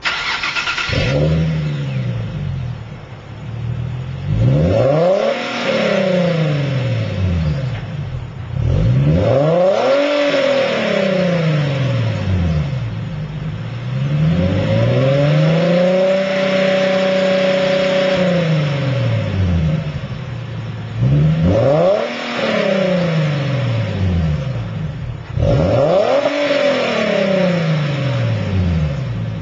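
Infiniti G37 coupe's 3.7-litre V6 free-revved while parked, heard at the tailpipes through a Tanabe Medalion Touring exhaust. Six revs, each rising and falling in pitch; the one near the middle is held high for a few seconds.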